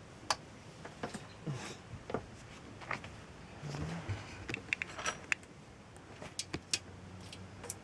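Irregular light knocks, clicks and metallic clinks of tools and hardware being handled, with a couple of short ringing clinks about five seconds in.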